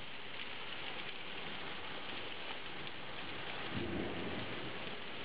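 Heavy rain pouring down steadily in a thunderstorm downpour, with a short low rumble of thunder about four seconds in.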